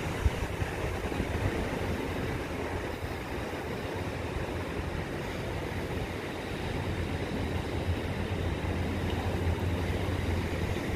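Ocean surf breaking on a beach: a steady rushing wash of waves, with a low rumble of wind on the microphone, getting a little louder near the end.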